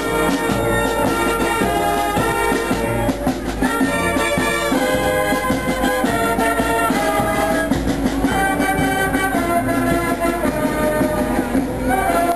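Marching band playing: brass horns, including sousaphones, holding sustained notes over a regular drum beat.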